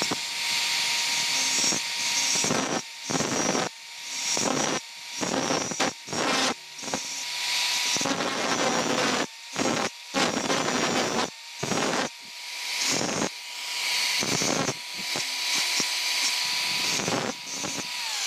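Bosch Professional angle grinder running with a steady whine while a steel nail is pressed against its thin cut-off disc again and again. Each contact is a harsh grinding hiss with short breaks between them. Near the end the whine falls in pitch as the grinder is switched off and spins down.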